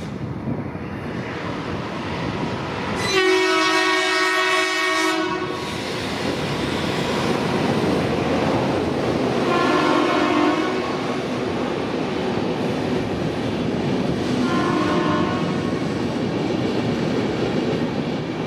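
Indian Railways ALCO diesel locomotive hauling a passenger train past and sounding its horn three times: one long blast about three seconds in, then two shorter ones about ten and fifteen seconds in. The blasts sit over the steady rumble of the engine and the train running on the rails.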